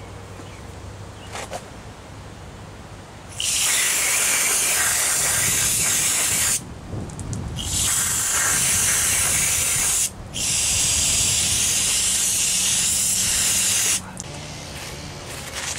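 Aerosol brake cleaner spraying in three long bursts of loud hiss, about three, two and four seconds long, a short break between each. It is flushing metal chips out of the freshly tapped passage and bores of an AC compressor.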